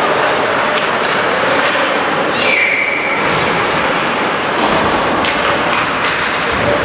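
Ice hockey play in an arena: a loud, steady wash of rink noise with scattered sharp clacks and knocks of sticks, puck and boards. A brief high tone sounds about two and a half seconds in.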